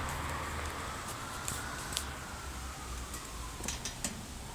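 A faint emergency siren wailing slowly up and then down in pitch under a steady hiss of rain, with a few sharp clicks near the end.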